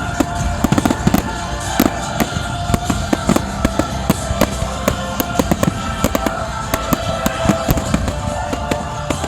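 Fireworks going off in quick succession, dozens of sharp cracks and bangs, with music playing underneath.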